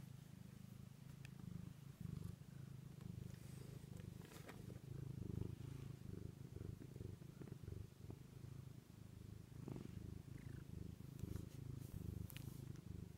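Domestic cat purring steadily, close to the microphone, with a few faint clicks and rustles.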